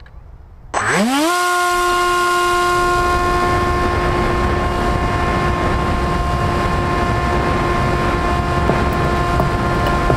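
SweepWings Flinch flying wing's electric motor and propeller starting up: a sudden start about a second in, the whine rising quickly in pitch, then holding a steady pitch, with wind rushing over the onboard microphone.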